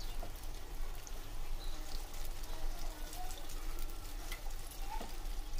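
Breadcrumb-coated potato lollipops deep-frying in hot oil, sizzling steadily with small crackles throughout.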